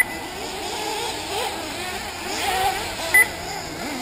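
Several 1/8-scale nitro RC buggy engines whining and revving up and down together as the cars race around the track. Twice a short high electronic beep cuts in, louder than the engines.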